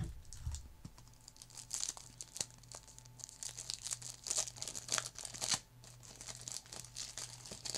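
Foil wrapper of a Bowman YoungStars hockey card pack crinkling and tearing as it is opened, a run of quick crackles.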